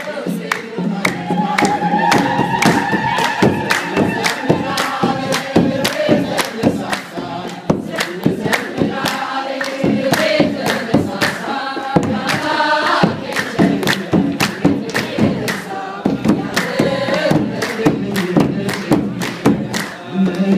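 Ethiopian Orthodox congregation singing together in chorus, with steady rhythmic hand-clapping a few times a second.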